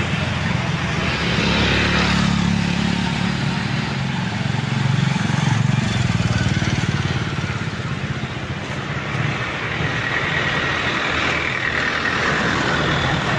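Street traffic: motor vehicles running along the road, with a steady low engine rumble that is strongest in the first half.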